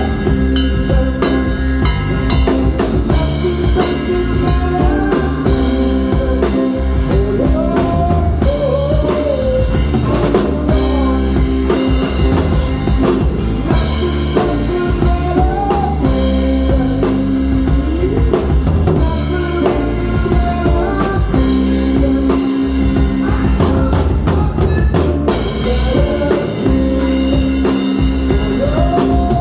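Live rock band playing a song: a drum kit with kick, snare and rimshots keeping a steady beat under bass and electric guitars holding chords, with a melody line that bends and slides in pitch every few seconds.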